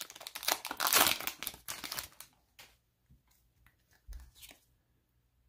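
A foil Pokémon card booster pack wrapper being crinkled and torn open by hand for about two seconds, followed by a few faint rustles as the pack is handled.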